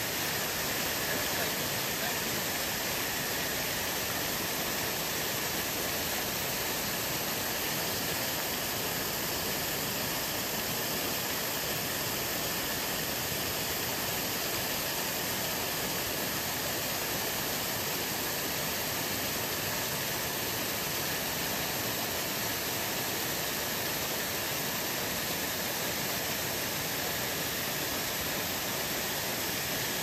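Fountain water pouring in a sheet down a long wall and splashing into the pool below: a steady, even rush.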